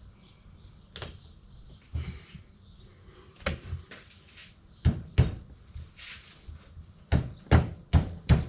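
Hand tools knocking on a Jeep TJ U-joint while a circlip is worked into its groove: a few scattered knocks, then a run of sharp knocks from about halfway through, coming two or three a second near the end.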